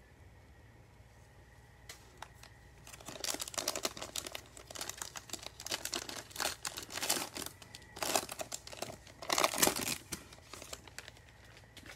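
The plastic wrapper of an Optic football card pack being torn open and crinkled by gloved hands, in a run of crackling bursts that starts about three seconds in and is loudest near the end.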